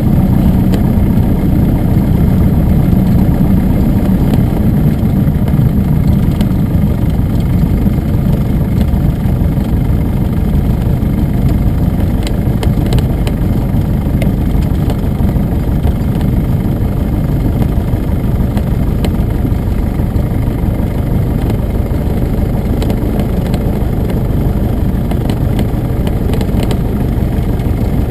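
Piper Tri-Pacer's piston engine running steadily, its sound easing a little about six seconds in.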